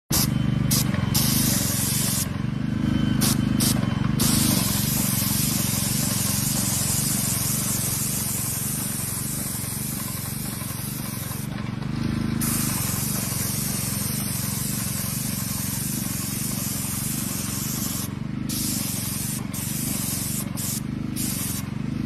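Hose-fed paint spray gun hissing steadily as it lays down floor paint, over a steady low pump hum; the hiss thins out briefly several times.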